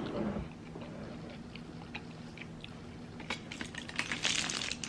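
Close-miked eating: scattered small clicks and crunches of chewing, with a brief crackly burst about four seconds in.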